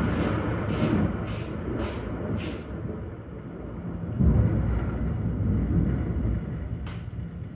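Thunder rumbling: a low roll that fades over the first few seconds, then a second roll swells about four seconds in and dies away.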